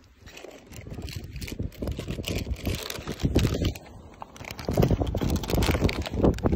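Wind buffeting the phone microphone, with the rustle and crinkle of a foil-laminate herbicide bag being handled, loudest in the second half.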